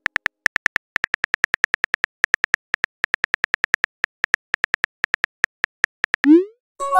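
Phone keyboard tap sound effects clicking rapidly and unevenly as a message is typed, then near the end a short rising tone as the message is sent, followed by a chime starting right at the end.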